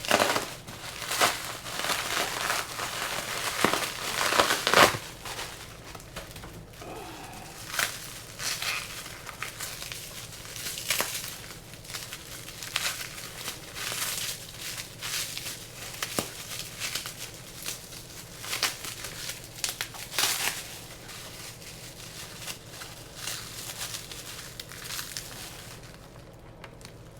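Packing material crinkling and rustling as it is unwrapped by hand, in irregular crackly bursts, loudest about four to five seconds in and thinning out near the end.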